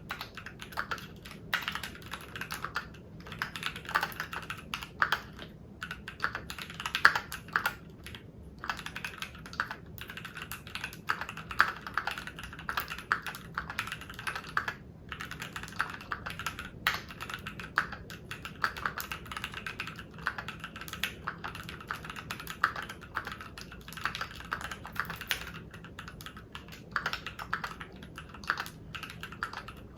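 Typing on a Keychron Q1 V2 mechanical keyboard fitted with red switches: rapid, uneven runs of keystroke clacks with a few short pauses, as a demonstration of how the switches sound.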